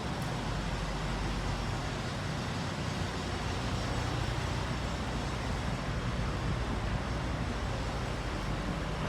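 Steady low drone of idling diesel semi-truck engines, with an even wash of traffic noise over it.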